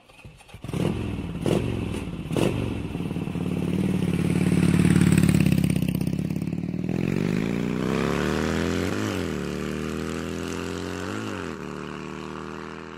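Motorcycle engine revving, used as the sound of an animated channel logo: three sharp clicks first, then the engine running and climbing in pitch, with two quick throttle blips near the end.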